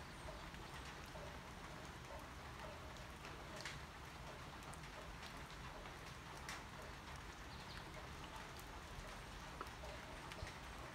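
Light, steady rain falling on leaves and the ground, with scattered sharp drips and drops.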